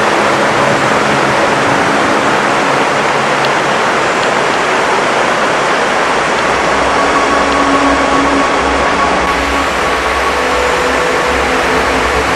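A motor running steadily under a loud rushing noise, its hum shifting in pitch a little about halfway through.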